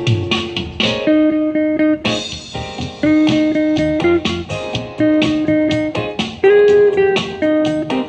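Archtop electric guitar played through a small amplifier: a smooth-jazz instrumental of chords struck about once a second, each briefly held, with melody notes over them.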